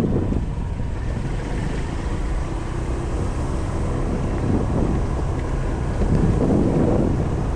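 Wind buffeting the microphone on a moving Honda Lead 125 scooter, over a steady low rumble of its small single-cylinder engine and road noise, swelling a little twice in the second half.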